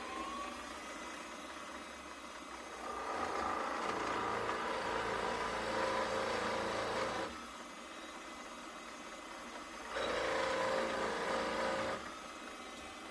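Electric drill running steadily, its pitch rising as it spins up at the start. The bit cuts into the hardwood twice, counterboring screw holes: once for about four seconds starting about 3 s in, and again for about two seconds starting about 10 s in. Both cuts are louder and rougher than the free-running motor.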